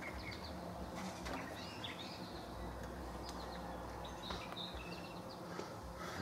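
Birds chirping quietly, a scatter of short high calls over a low steady hum.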